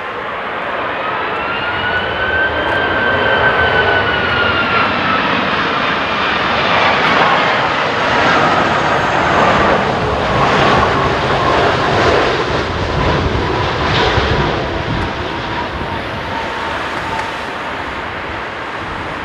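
Air China Airbus A330-243's twin Rolls-Royce Trent 700 turbofans at approach power as the airliner passes on short final. It is a loud jet rumble carrying a whine that rises in pitch, then falls and levels off as the aircraft goes by, easing slightly near the end.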